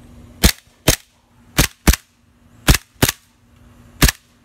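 Airsoft pistol firing seven sharp shots, mostly in quick pairs.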